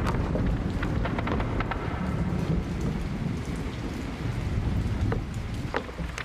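Rolling thunder rumbling steadily under falling rain, with scattered sharp ticks and crackles through it.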